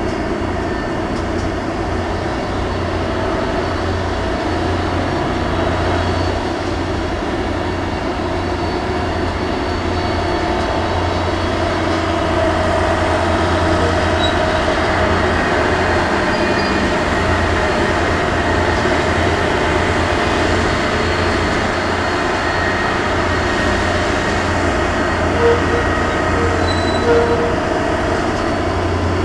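Dockside grab-bucket unloading crane's machinery running with a steady mechanical drone and a low hum while it works the clamshell bucket. Two short, sharper sounds come near the end.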